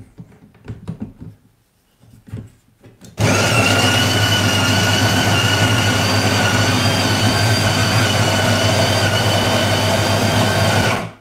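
DeLonghi La Specialista Arte's built-in conical burr grinder grinding espresso beans into the portafilter at grind setting 4: a steady motor whine with a low hum that starts about three seconds in, runs for about eight seconds and stops abruptly. Before it, a few light knocks as the portafilter is seated in the grinder cradle.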